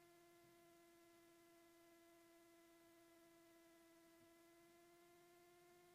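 Faint, steady electrical whine on the Cessna 210's intercom audio feed: a single thin tone with overtones, sagging very slightly in pitch, over otherwise near-silent intercom audio.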